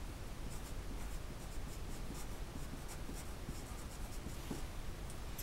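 Pencil writing on paper: a run of short, quick scratching strokes over a faint low room hum.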